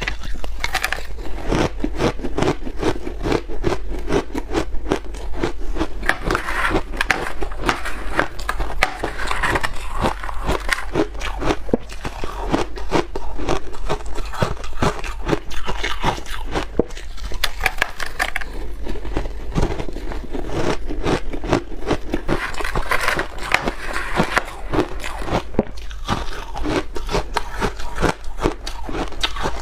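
Ice being bitten and chewed close to the microphone: dense, continuous crunching and cracking with no pauses.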